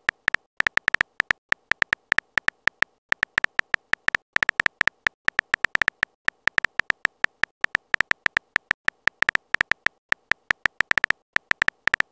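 Virtual phone keyboard key clicks as a text message is typed out letter by letter: short sharp ticks about six a second, in uneven runs with brief pauses.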